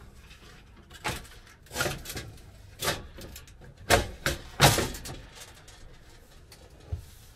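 Clacks and knocks of a cooktop's glass lid and its hinge fittings being handled, lifted off and set down on a wooden countertop. A string of sharp knocks over the first five seconds, the loudest near the middle, then one more click near the end.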